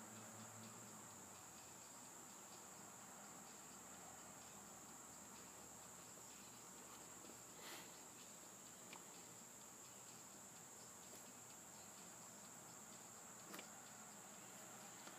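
Near silence: faint room tone with a steady high-pitched whine, and two faint ticks, one about halfway through and one near the end.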